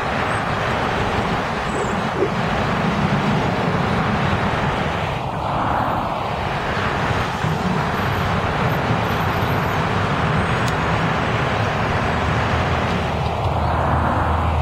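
Steady roar of traffic on a multilane highway, with cars whooshing past close by twice. Underneath is the low drone of an approaching NJ Transit RTS transit bus's diesel engine.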